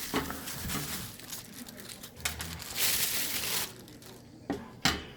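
Packaging crinkling and rustling as the parts of a microphone stand are unwrapped and handled, with a couple of sharp clicks near the end.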